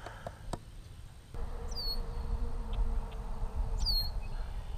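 Baitcasting reel cranked in a steady whir that starts about a second in, with two short high chirps that fall in pitch.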